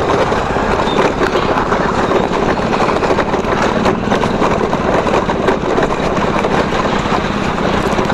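Tunwal Elektrika electric bike ridden over a rough, potholed road: a steady rushing noise of road and wind, with many small knocks and rattles as its body parts jolt over the bumps.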